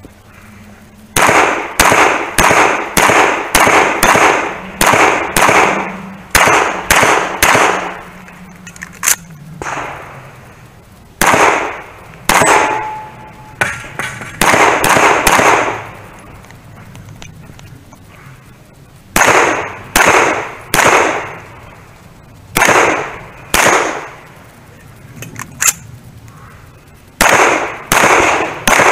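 Semi-automatic pistol firing in fast strings of shots about a third of a second apart, with short pauses between strings. A brief ringing tone follows one shot about halfway through.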